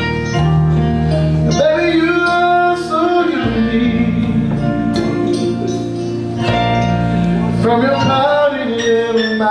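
Live band playing: a male singer over guitar, drums and keyboard, with held notes and a steady drum beat.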